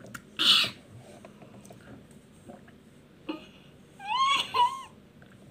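A young child's short, high-pitched wordless whine, with a wavering pitch, about four seconds in. It is preceded by a brief breathy burst about half a second in and a few faint clicks.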